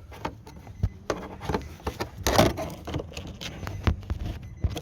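Hands fitting a plastic electrical connector onto a car's fuel pump: scattered light clicks and knocks, with a louder scrape a little over two seconds in.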